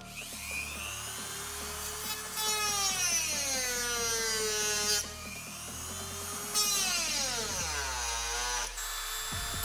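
Handheld rotary tool with a small cutting disc running and cutting into a plastic tail-light housing. Its whine sags in pitch as the disc bites and climbs back as it frees up. The pitch drops deeply near the end, then picks up again.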